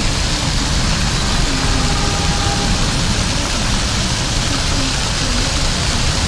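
Fountain jets splashing steadily into a shallow pond, with city traffic running in the background.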